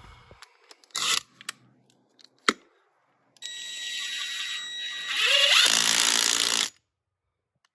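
Cordless impact wrench running a nut down on a strut's top mount: the motor spins freely for about two seconds, then hammers for about a second as the nut tightens, stopping abruptly. A few sharp clicks of the tool and socket being handled come before it.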